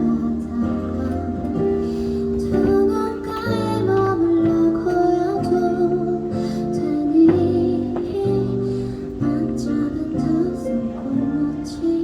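Live soft pop ballad played on keyboard and plucked guitar, with sustained chords under a slow melody, as the song draws to its close.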